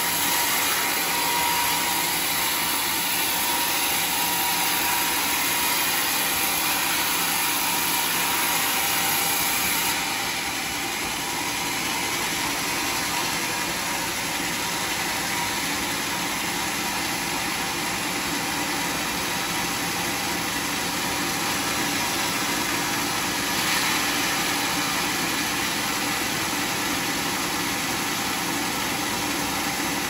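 Sawmill machinery running steadily: a constant mechanical drone and hiss. About a third of the way in the hiss eases slightly, and there is a brief louder moment later on.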